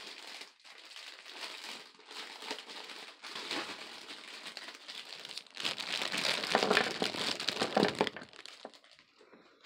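Clear plastic bag crinkling and rustling as it is handled and opened, loudest a little past the middle, then dying away near the end.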